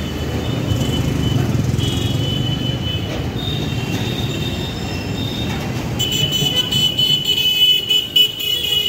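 Street traffic: a steady rumble of engines with high-pitched horns sounding on and off, one horn held for about three seconds near the end.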